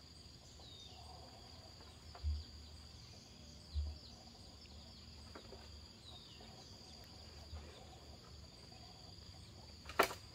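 Insects keep up a steady high drone. There are two dull low thumps a couple of seconds in and a sharp click or knock near the end.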